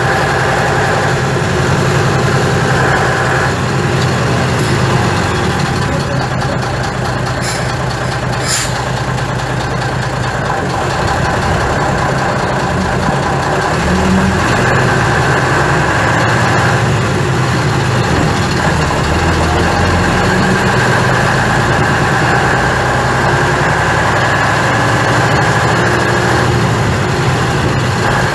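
Skoda 706RT six-cylinder diesel of a 1977 Jelcz 272MEX city bus running, heard from inside the cabin near the front, its note shifting a few times with engine speed. A couple of short sharp sounds about eight seconds in.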